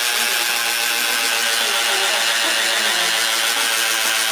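Electric drill running steadily under load, boring a hole.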